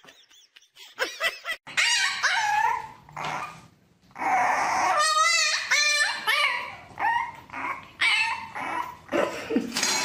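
A puppy whining and howling in a run of wavering, high cries, with a short gap about four seconds in and louder cries after it.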